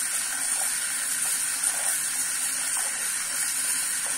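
Tap water pouring steadily into a stainless-steel pot of chopped vegetable pieces in a steel sink, with a hand swishing the pieces about to rinse them.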